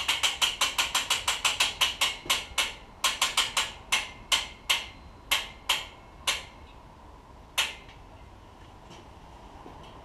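Ratchet clicks from a homemade bow-shooting rig's mechanism. The clicks come fast and steady at first, then slow and space out, with the last one about seven and a half seconds in.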